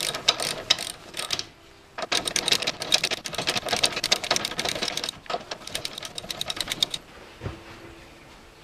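Socket ratchet tightening bolts at a motorcycle's front wheel, sped up so its clicks run together in dense rapid bursts with short pauses. The clicking stops about seven seconds in, leaving a faint steady hum.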